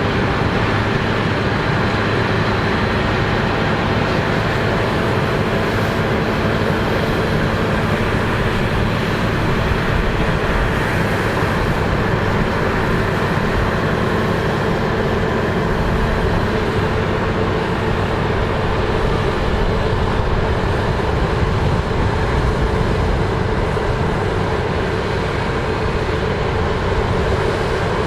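New Holland combine harvester running steadily while harvesting barley, a dense, even machine noise with a low steady hum.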